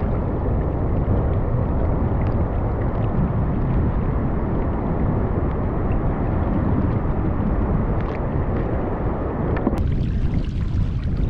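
Wind buffeting an action camera's microphone over water sloshing against a sea kayak's hull: a steady, low rushing noise. Near the end it gives way to a lighter hiss of wind and small waves at the shoreline.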